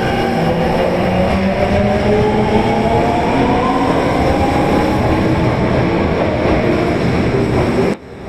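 Tanimachi Line 22 series subway train picking up speed, a steady rumble with a motor whine of several tones rising slowly in pitch. The sound drops away suddenly near the end.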